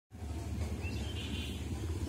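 Outdoor trackside ambience: a steady low rumble, with a bird giving a short rising chirp and a brief buzzy trill about a second in.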